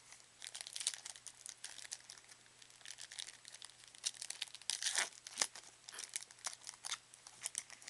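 Crinkling and tearing of a 2009 Leaf Certified Football trading-card pack wrapper being ripped open by hand: a dense run of sharp crackles, loudest about five seconds in.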